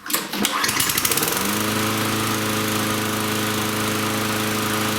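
Toro walk-behind mower's 6.5 hp Tecumseh engine starting: a short rough burst as it catches, then about a second in it runs up to speed and holds a steady run.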